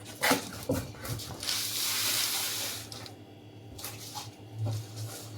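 Cardboard box of stainless steel cooking pots being opened by hand: a few knocks and crinkles, then about a second of rustling packaging, over a steady low hum.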